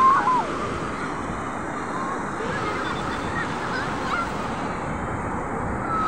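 Ocean surf breaking and washing up a sandy beach as a steady rush. A loud wavering high-pitched cry comes right at the start, followed by a few fainter short cries.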